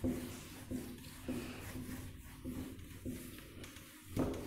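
A cloth duster wiping marker writing off a whiteboard: a series of rubbing strokes.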